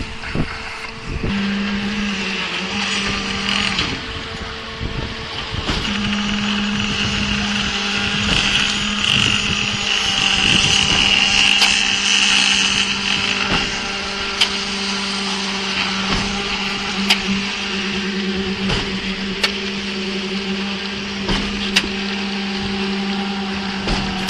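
Concrete mixer pump running with a steady machine drone. In the second half there is a sharp knock every two to three seconds.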